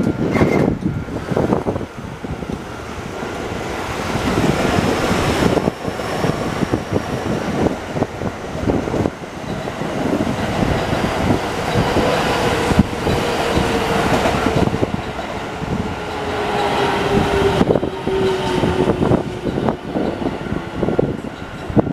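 Keio Line electric train passing over a level crossing for about twenty seconds: a sustained rumble with a dense run of wheel clacks over the rail joints, and a faint whine that falls slowly in pitch through the second half.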